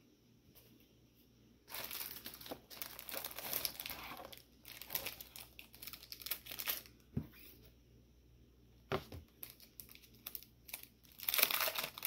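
Packaging being crinkled and torn open by hand, in several bouts of rustling after a quiet first couple of seconds.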